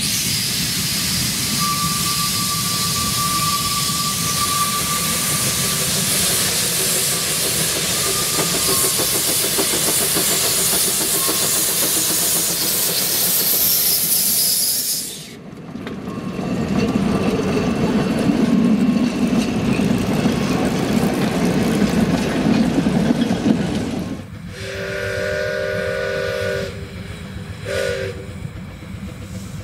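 Narrow gauge steam locomotive: a loud, steady hiss of steam for about fifteen seconds, then a lower rumble as the engine works. Its steam whistle then sounds once long, with a short second toot near the end.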